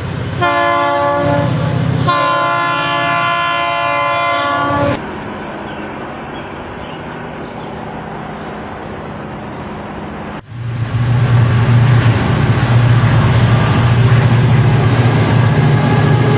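Diesel locomotive's multi-chime air horn: a short blast, then a long blast that stops about five seconds in, followed by the rumble of the moving train. About ten seconds in, an abrupt cut brings in a louder, steady low diesel engine drone.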